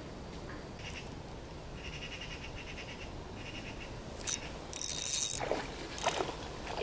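Spinning reel being cranked on a light rod, its gears giving a fine, fast whirring tick, followed by a few short, loud, high-pitched hissing bursts as a small pike takes the jig and the rod bends.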